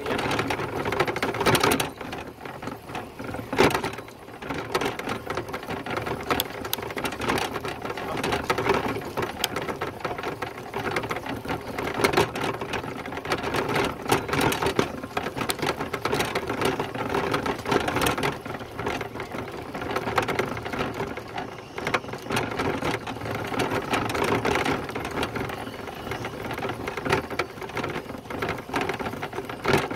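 A bicycle in motion, with steady mechanical rattling and fast irregular clicking.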